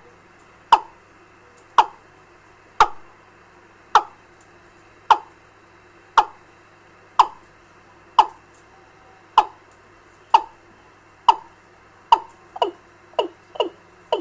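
A recorded bird call played through a bird-trapping amplifier and loudspeaker: one short, sharp call falling in pitch, repeated about once a second, turning into quicker, shorter calls near the end. A faint steady hum lies under it.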